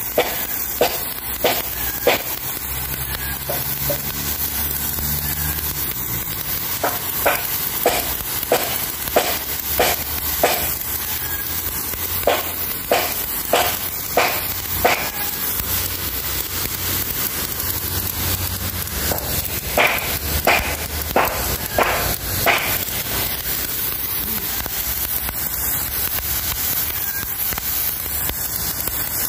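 Jet of water from a garden hose nozzle hissing steadily as it strips algae off a concrete floor. Over it runs a regular beat of sharp ticks, about three every two seconds, that comes and goes.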